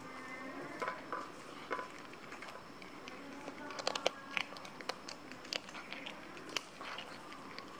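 A tabby cat chewing and crunching fish bones: irregular sharp crunches, several in quick succession about four seconds in.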